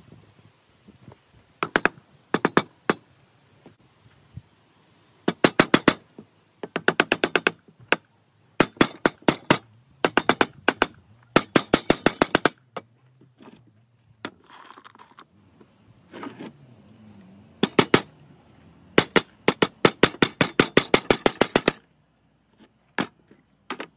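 A hammer striking a birdhouse box made of reclaimed wooden boards, nailing it together. The blows come in quick runs of several a second, each run lasting about a second, with short pauses between them, and a few single blows near the end.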